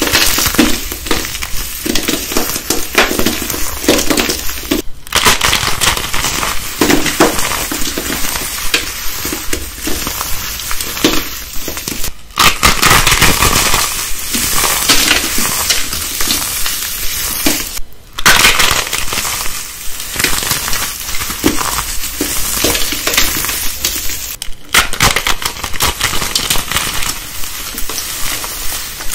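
Hands crushing and crumbling glitter-covered soap pieces: a loud, dense crackling crunch, broken by a few brief pauses.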